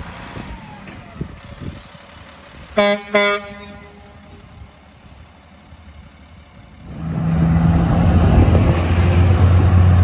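A Freightliner FL60's pair of Hadley air horns gives two short blasts in quick succession about three seconds in. From about seven seconds a louder, steady heavy-truck engine drone with traffic noise takes over.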